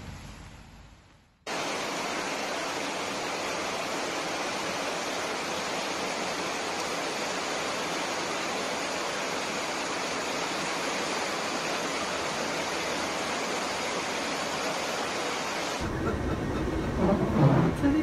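Steady, even rush of floodwater and heavy rain, starting abruptly about a second and a half in. Near the end it cuts to a lower rumble of vehicles standing in floodwater.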